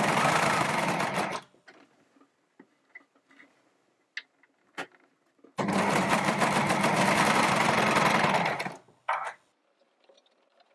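Brother four-thread overlocker (serger) stitching a knit waistband, in two runs: one of about a second and a half at the start, then a longer one of about three seconds from roughly five and a half seconds in. Between the runs there are only a few faint clicks.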